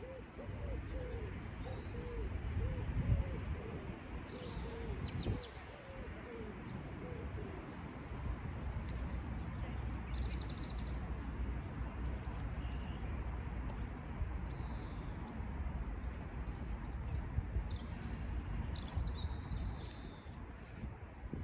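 Birds calling outdoors: a pigeon cooing repeatedly through the first seven seconds or so, and small birds chirping high-pitched in short bursts now and then, over a steady low rumble.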